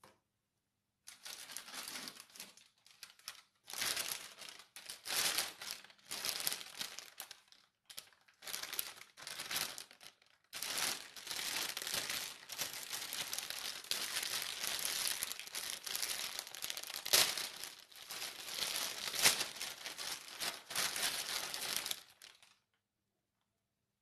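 Thin clear plastic bag crinkling and rustling as it is handled, in bursts with short pauses, then a long unbroken stretch; it stops a little before the end.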